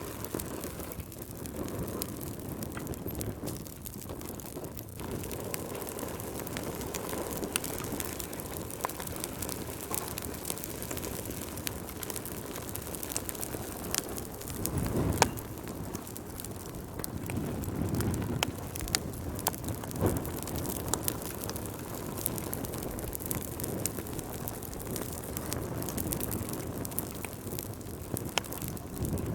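Wood fire burning in a fireplace, crackling with frequent sharp pops over a steady low rush of flames. The rush swells briefly about halfway through and again a few seconds later.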